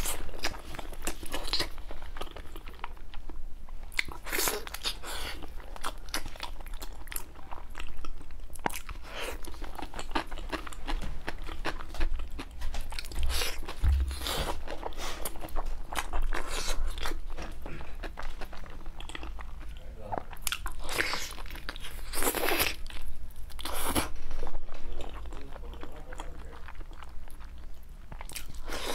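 Close-up eating sounds of a person biting and chewing braised beef tendon: irregular mouth clicks and smacks.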